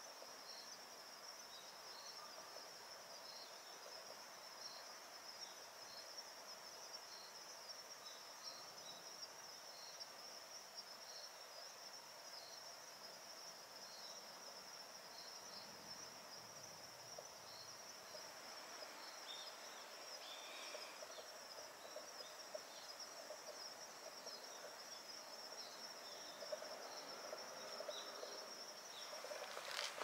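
Faint, steady high-pitched trilling of insects, with a short high chirp repeating at an even pace, a little faster than once a second, through the first half.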